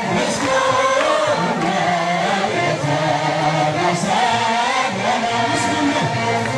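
A choir singing an Amharic church hymn, many voices together on a slow, wavering melody, with a few sharp percussive beats.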